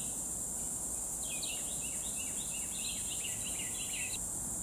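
Red-eyed vireo singing a run of short, quick phrases, starting about a second in, over a steady high drone of insects.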